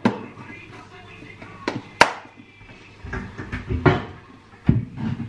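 A blue plastic lunch box being handled, with a string of sharp clacks and knocks, the loudest about two seconds in.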